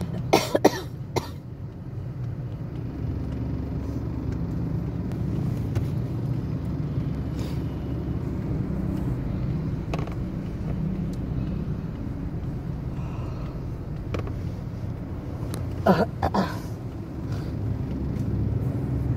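Steady low rumble of street traffic or a running vehicle engine, with a few short sharp sounds near the start and again about 16 seconds in.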